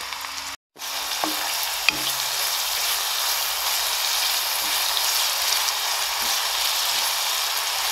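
Chopped onion sizzling in hot oil in a kadhai, stirred with a wooden spatula, frying on its way to turning pink; a steady hiss with a few light taps of the spatula, cutting out briefly just under a second in.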